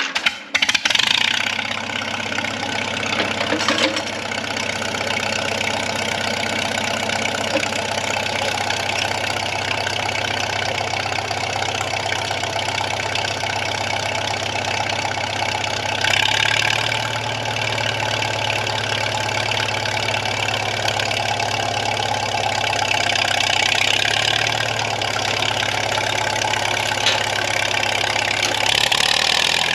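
Crawler tractor engine running steadily, its tone stepping up slightly about halfway through.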